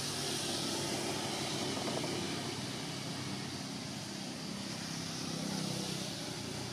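Steady background din of distant engine traffic, a low rumble that slowly shifts in pitch under an even high hiss.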